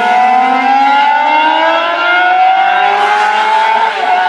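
An engine under acceleration, its pitch rising slowly and steadily, with a brief dip near the end before it holds steady. This is likely a motorcycle engine.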